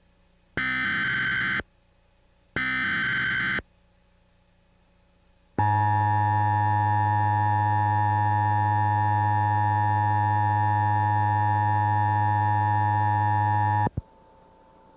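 Emergency Alert System alert tones: two short bursts of warbling digital header data, each about a second long and a second apart. After a pause comes the steady two-tone attention signal for about eight seconds, cutting off suddenly. Together they announce that a broadcast emergency warning follows.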